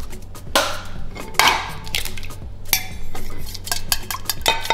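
Eggs cracked against a stainless steel bowl, two sharp knocks in the first second and a half, then a wire whisk beating the eggs, clicking rapidly against the steel from a little past halfway.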